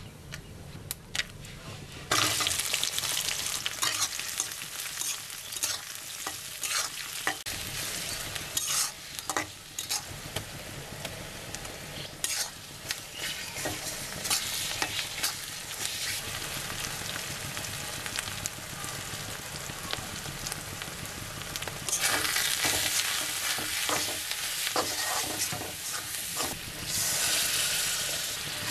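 Onions and spice paste frying and sizzling in hot oil in a wok, stirred and scraped with a metal spatula. The sizzle grows much louder about two seconds in and flares up again near the end as water is poured onto the hot masala.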